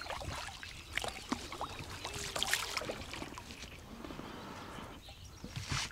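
Small splashes and drips of water with scattered light knocks and clicks, busiest about two to three seconds in.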